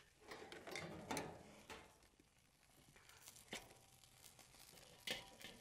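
Faint scattered metal clicks and scrapes from tongs working in an open charcoal kettle grill.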